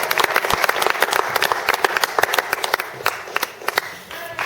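Audience applauding with dense hand-clapping, thinning out over the last second or so.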